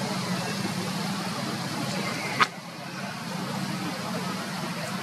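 Steady outdoor background noise with a low, constant hum, and a single sharp click about halfway through.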